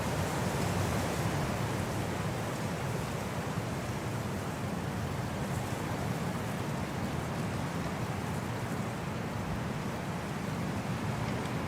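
Winter wind blowing as a steady, deep rushing noise that swells and eases only slightly.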